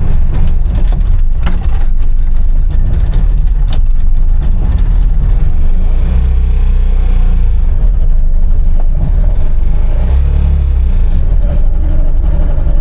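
The Trabant 601's two-cylinder two-stroke engine running steadily under way, a loud, continuous low rumble.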